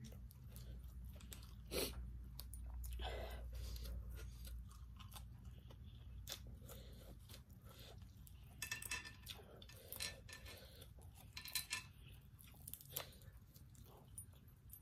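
Quiet eating and food-handling sounds: chewing, with scattered short clicks and rustles as fresh herbs and lettuce leaves are picked and wrapped, over a steady low hum.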